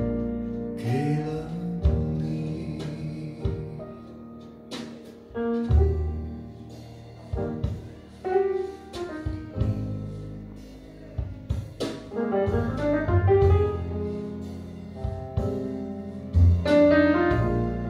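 Recorded music playing over hi-fi loudspeakers: an instrumental passage of a Chinese pop ballad with piano-like struck notes over a bass line and sustained strings, played back through Qinsound loudspeakers driven by a Perreaux preamp and power amplifier.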